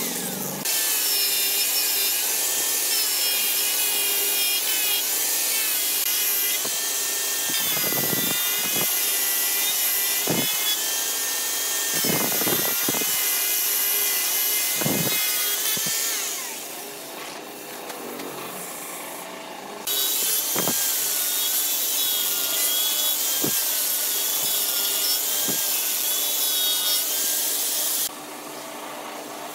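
Hand-held electric angle grinder with a sanding pad running against carved wood, its motor whine wavering as the pad bears on the workpiece. It winds down about halfway through, starts again a few seconds later, and stops near the end.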